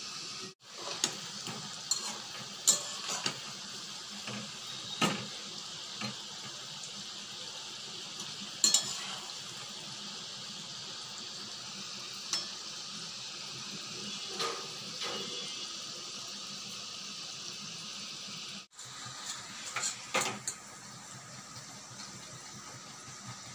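Palm-fruit fritters (taler bora) deep-frying in hot oil in a metal wok, a steady sizzle throughout. Over it come occasional clinks and scrapes of a metal spatula and a wire strainer against the pan. The sizzle drops a little near the end as the fritters are lifted out.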